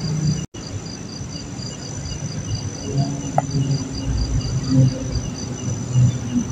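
Crickets chirping in an even, repeating rhythm with a steady high trill behind them, over a low rumbling noise. The sound drops out completely for a moment about half a second in.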